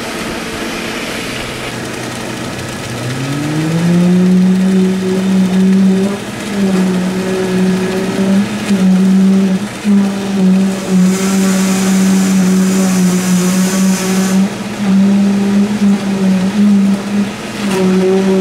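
Concrete poker vibrator spinning up about three seconds in, then holding a steady high hum that dips briefly again and again as it is worked into the fresh slab concrete, over the drone of the concrete pump. A rushing hiss comes in for a few seconds in the middle.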